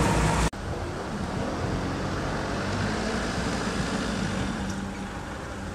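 About half a second in, the sound cuts abruptly to a steady outdoor background of engine noise: a vehicle running with a faint low hum under an even rush.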